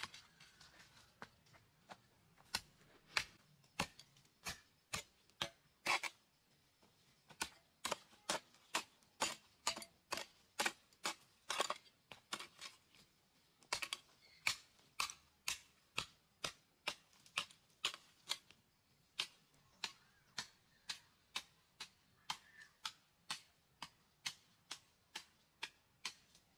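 Steel hoe blade chopping into stony dirt, sharp strikes about two a second with a few short pauses.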